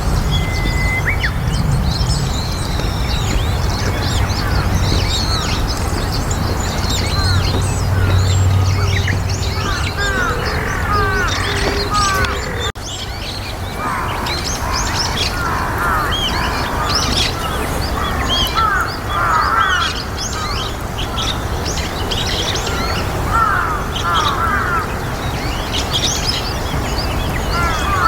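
Birds chattering busily with many short chirps and squeaky rising calls: white-cheeked starlings at first, then, after an abrupt cut about halfway through, brown-eared bulbuls.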